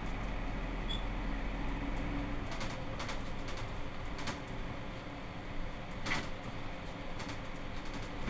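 Mercedes-Benz Citaro C2 city bus standing at a stop with its diesel engine idling, a steady low rumble. A few short sharp clicks or knocks come partway through.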